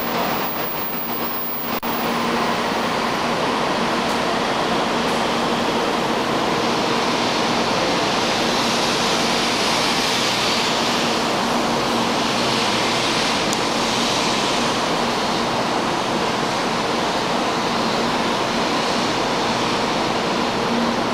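Taiwan High Speed Rail 700T train pulling into the platform: a steady rushing noise of the cars rolling past, with a faint low hum underneath.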